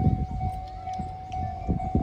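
Japanese level-crossing warning bell ringing: a steady repeated electronic tone with brief gaps about twice a second, over low, uneven rumbling.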